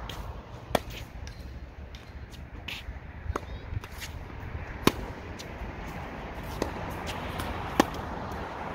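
Tennis balls struck by rackets during a forehand rally: a few sharp, separate pops a second or more apart, the loudest about five seconds in and again near the end.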